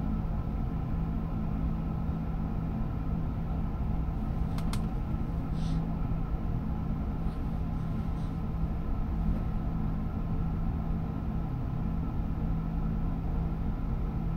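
Steady low drone of a ferry's engines underway, heard from inside the ship behind glass, with a few faint clicks about a third of the way in.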